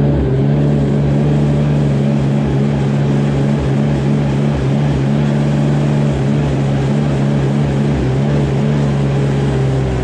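Small air-cooled engine of a ride-on sawdust bedding spreader running steadily at constant speed, blowing sawdust out into the stalls as it goes. Its pitch dips slightly near the end.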